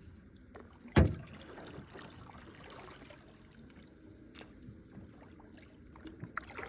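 Canoe being paddled on calm creek water: soft paddle strokes and water sounds, with one loud knock about a second in and a few lighter clicks and taps.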